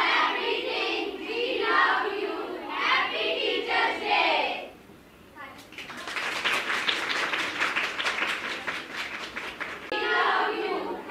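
A group of schoolgirls singing together in unison. About five and a half seconds in they break off and clap their hands for about four seconds, then start singing again near the end.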